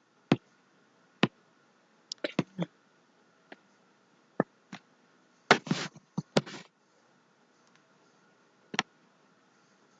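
Scattered sharp clicks of a computer mouse, its buttons and scroll wheel worked while scrolling down a webpage, with a longer burst of noise lasting about a second just past the middle.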